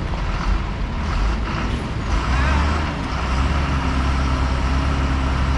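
Bus diesel engine running under load as the bus edges around a hairpin bend, its low drone growing stronger about two seconds in as it pulls.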